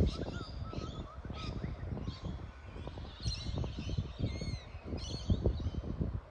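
Several small birds chirping and giving short whistled calls, busiest about halfway through, with a few arched, down-curving notes. An irregular low rumble with small thumps runs underneath.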